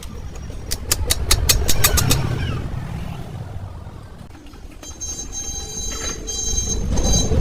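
Heavy vehicle engine running with a low rumble, with a quick run of sharp metallic clicks about a second in and a high-pitched squeal near the end.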